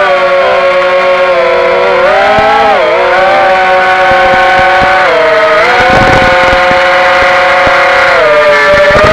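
Brushless motors and propellers of a QwinOut F4-X1 FPV racing quadcopter whining in flight, a high steady hum whose pitch shifts with the throttle, dipping about three seconds in and again near the end.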